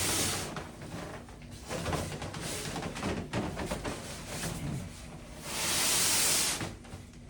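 Cardboard box and packing material being handled: scattered knocks and rustling, with a loud hissing scrape of about a second near the end.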